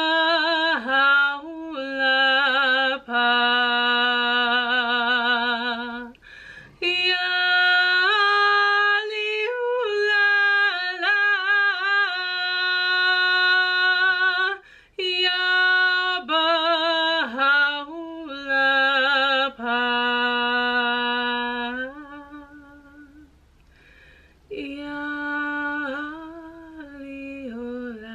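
A woman chanting a Bahá'í devotional invocation unaccompanied, in long held notes with a wavering vibrato, phrase after phrase with short breaths between; the voice grows softer near the end.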